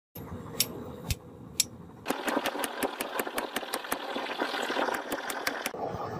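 Hammer blows on a red-hot iron chain link on an anvil: three single ringing strikes about half a second apart, then a quick run of lighter taps, about six a second, with a hiss behind them. Near the end the taps stop and the steady roar of the forge takes over.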